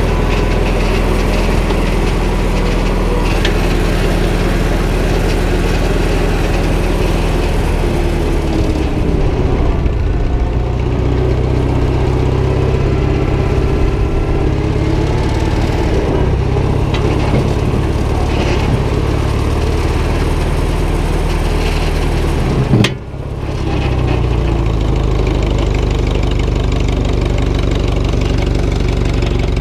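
Old loader tractor's engine running steadily under the driver, its note shifting around ten seconds in. About 23 seconds in there is a sharp knock and the sound briefly dips before the engine note returns.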